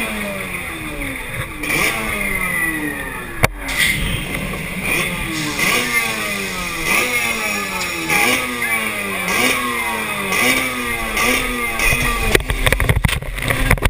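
Kawasaki X2 stand-up jet ski's two-stroke engine revved in repeated throttle blips, about one a second, the pitch jumping up and then falling away each time. A single sharp bang about three and a half seconds in, and a clatter of knocks and splashing near the end.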